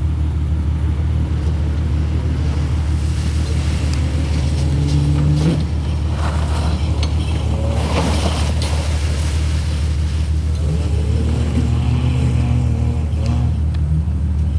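Jeep Cherokee XJ engine revving hard off-road, the pitch climbing to a peak about five seconds in and then falling back, over a constant low rumble. Around eight seconds in, spinning tyres churn through mud, then the engine revs up and down again.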